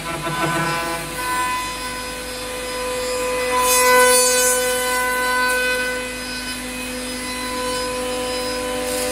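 5-axis CNC router's HSD spindle cutting a wooden chair part: a steady whine from the spindle with the hiss of the cutter in the wood, loudest about four seconds in.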